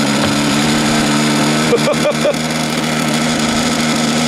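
Rossi .45 two-stroke glow engine on a model flying wing running steadily, sounding good.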